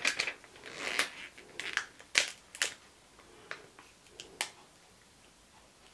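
Clear plastic stamp sheets handled by hand: a scatter of sharp plastic crinkles and clicks, several in the first three seconds and one more a little after four seconds.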